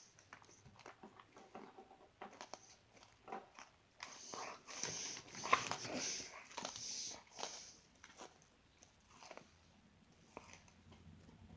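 Crisp cookies being bitten and chewed: a run of short crunches and crackles, densest and loudest in the middle stretch, sparser toward the end.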